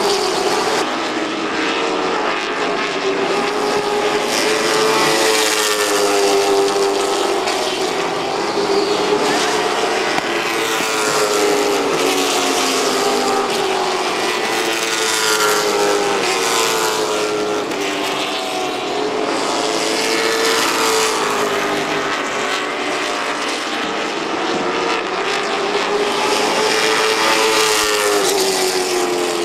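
Stock car racing engines running at speed on a short oval, loud and continuous, their pitch wavering up and down as the cars go through the turns and down the straights.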